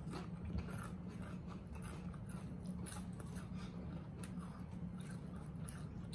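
Doritos tortilla chips rustling and crackling as hands feel through a bowl of them, with irregular crunches of chips being chewed. A low steady hum lies underneath.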